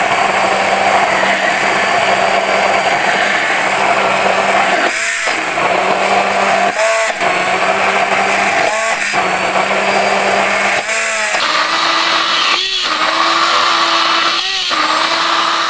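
Hand immersion blender running at top speed in a tall beaker, emulsifying egg, oil and mustard into thick mayonnaise. The motor note dips and bends briefly about every two seconds as the blender is moved through the thickening mixture, and shifts higher about eleven seconds in.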